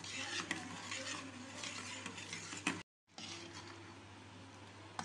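Metal ladle stirring and scraping custard as it thickens in a steel pot on the stove. The sound cuts out briefly about three seconds in.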